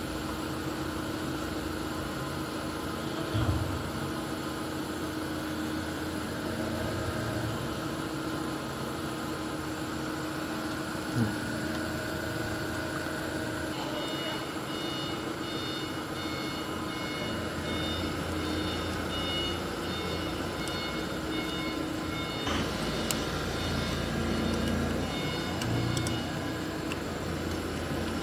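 Steady workshop background hum with a few small knocks and clicks as wire ends are screwed onto an electric motor's terminal block. A faint high-pitched pulsing tone joins about halfway through.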